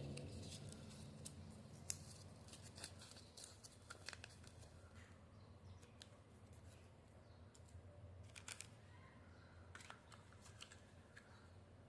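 Faint, scattered sharp clicks and snips from small hard candy packaging being handled, with a quick cluster of clicks about eight and a half seconds in.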